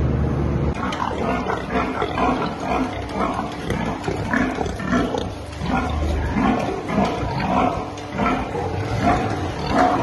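Pigs in a barn squealing and grunting, a run of short overlapping calls, several a second. A steady low hum stops under a second in.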